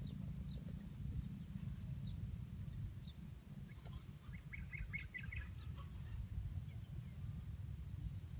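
Outdoor ambience: a steady low rumble and a constant high-pitched whine throughout, with a short run of about six quick bird chirps about halfway through.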